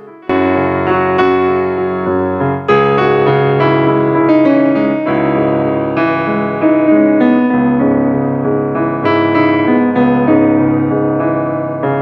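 Background piano music, a run of notes that begins just after the outro speech ends.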